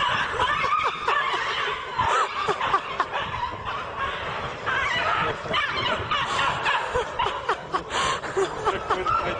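People snickering and laughing, with many short high-pitched squeals running through it.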